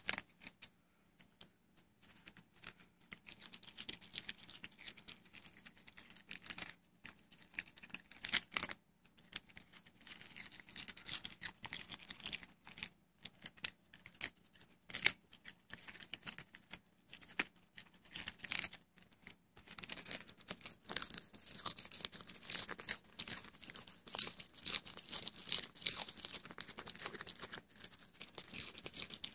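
Miniature pinscher chewing a crisp lettuce leaf: irregular crunches and tearing, with pauses in between. The chewing comes faster and louder in the last third.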